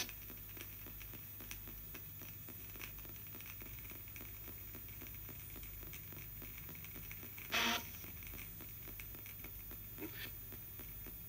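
P-SB7 spirit box radio sweeping down the AM band in reverse: a steady low hiss and hum with faint ticks as it steps between stations, broken by a short louder snatch of broadcast sound about seven and a half seconds in and a weaker one about ten seconds in. The operator takes one of these snatches for a spirit voice saying his second name, 'Wolf'.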